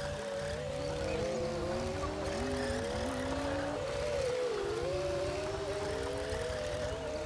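Komatsu D60P bulldozer working: a steady engine rumble under several whining tones that rise and fall independently of each other.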